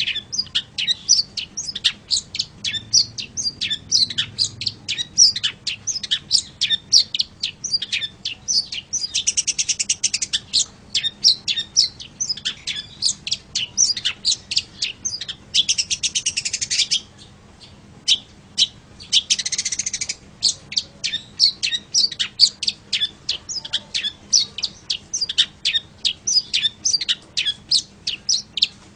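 Long-tailed shrike (pentet) singing: a fast, steady string of short sharp high chirps, broken three times by longer harsh, buzzy rasping calls, about a third of the way in, past the middle and about two-thirds in.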